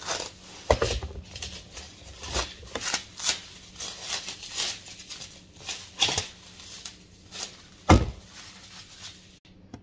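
Clear plastic wrap crinkling and tearing in irregular crackles as it is pulled off a cardboard bottle tube by hand, with a loud knock near the end as the tube is set down on the wooden table.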